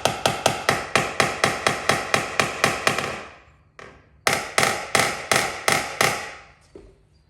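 Paintless dent repair hammer tapping rapidly on a vehicle's sheet-metal panel, about five light taps a second with a faint metallic ring, knocking down the high crown left by glue pulling. It stops briefly, then a second run of about seven taps follows.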